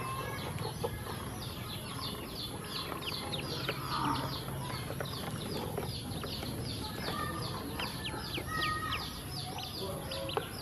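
A group of eight yellow ducklings peeping continuously in quick, high, downward-sliding chirps, with a few light clicks among them.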